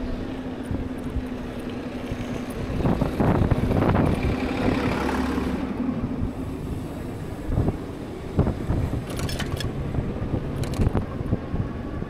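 Street traffic noise heard from a moving e-bike: a steady hum through the first half, a louder rush about three to five seconds in, and scattered short knocks and rattles.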